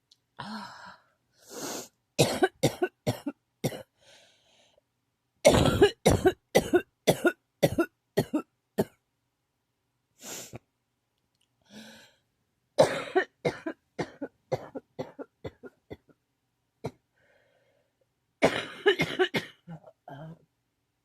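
A person in a coughing fit: four bouts of rapid, repeated coughs, with breaths drawn between the bouts.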